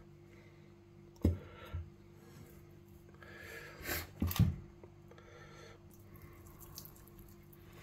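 Hands handling a string-tied whole rabbit on a plastic cutting board: two knocks about a second in, then rustling and a quick cluster of sharper knocks around four seconds, followed by soft rubbing as lard is pressed into the meat. A faint steady hum runs underneath.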